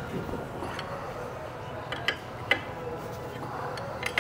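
Three sharp metallic clinks of a crescent wrench against the steel bolts and cast casing of a pump's suction case as the bolts are tightened, over a faint steady hum.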